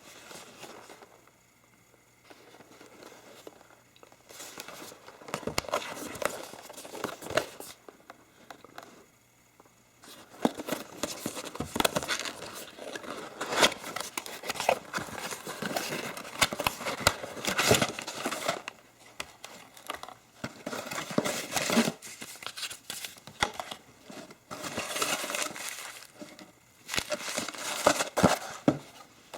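Packaging being unwrapped and handled: irregular bursts of crinkling and rustling with short pauses in between.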